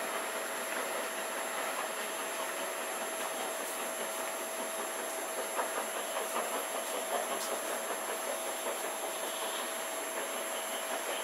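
Steam-hauled train pulling away into the distance: a steady rumble and hiss from the receding coaches and locomotive, with a few faint clicks from the wheels.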